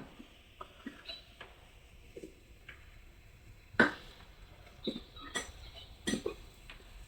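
Knife work on a green papaya: scattered light taps and scrapes as the seeds are cut away, with one sharp knock about four seconds in.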